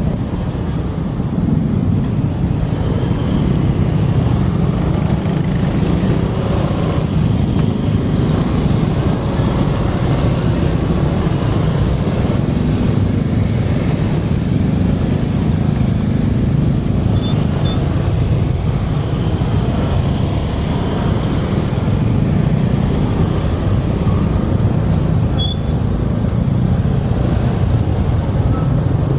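Road traffic at close range: motor scooters and cars running around the listener, a steady low rumble with no single event standing out.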